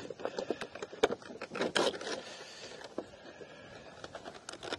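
Cardboard box and its plastic packaging being opened and handled with gloved hands: a steady run of small clicks, scrapes and rustles.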